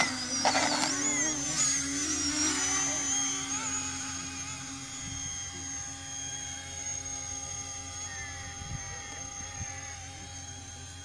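Electric motors and propellers of a Convergence RC model plane running at high power, a steady high whine, as it lifts off and climbs away. The whine grows fainter after the first few seconds.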